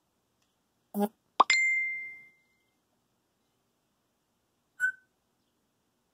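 African grey parrot mimicking household sounds: a short call about a second in, then a sharp pop followed by a clear ringing ding that fades over about a second. A short chirp comes near the end.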